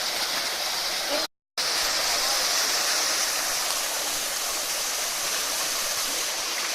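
Waterfall: a steady, dense rush of falling water, brightest in the upper range, that cuts out completely for a moment about a second in and then resumes.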